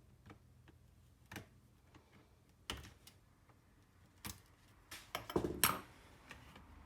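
Scattered clicks and taps of laptop parts and tools being handled during disassembly, with a denser clatter of knocks about five seconds in.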